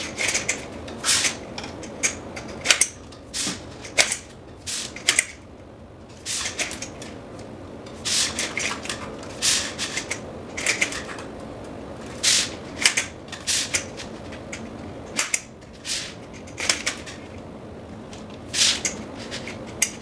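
Vertical blind slats being snapped one by one into the stem clips of the head rail: a series of sharp, irregular clicks, about one a second.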